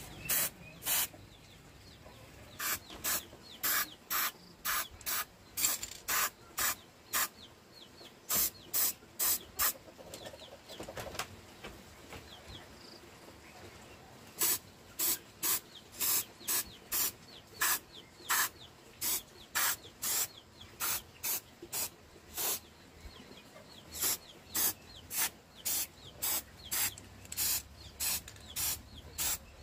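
Rasping strokes of hand abrasive work on a part, about two to three a second, in runs broken by short pauses.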